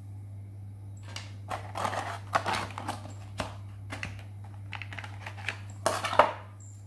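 Thin clear plastic bag crinkling in the hands as it is worked off a small flashlight, a string of short crackles that is loudest near the end.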